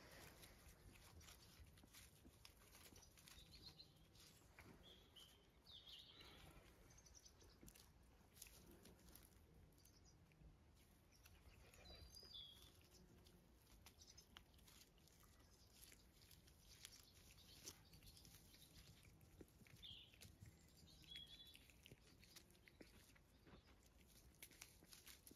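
Faint rustling, chewing and small clicks of puppies tugging and gnawing a stick in long grass, with a few faint high chirps now and then; mostly near silence.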